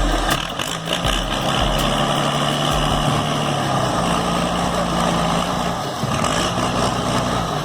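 Log skidder's diesel engine running under load as it drags a large log through brush, its pitch stepping up and down as the throttle changes.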